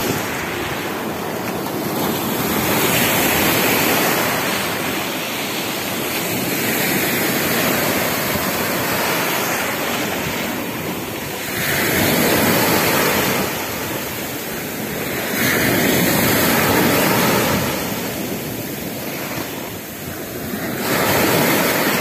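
Sea surf breaking and washing up a pebble beach, the rush swelling and fading with each wave about every four seconds, with some wind on the microphone.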